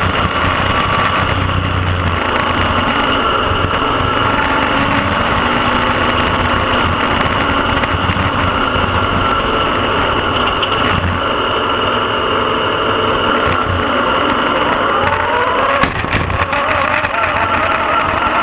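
Speedway car engine running hard at racing revs, heard from inside the cockpit, with the engine note swelling and falling through the laps and rising near the end. A few sharp cracks or knocks come near the end.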